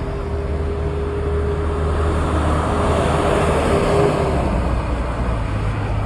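A bus driving past on a highway: a steady engine drone with tyre and road noise that swells about three to four seconds in as it comes close.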